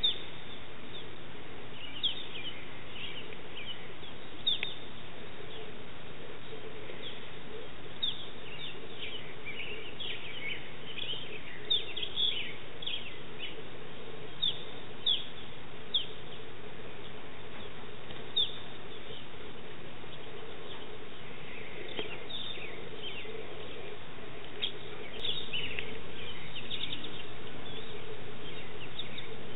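Birds chirping: many short, high chirps that fall in pitch, coming singly and in irregular runs over a steady low hum. The hum gets a little louder about three-quarters of the way through.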